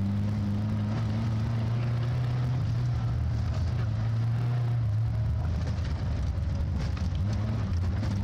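Austin Maxi's four-cylinder engine running hard under way, heard from inside the cabin, its note fairly steady with a couple of brief dips in the second half.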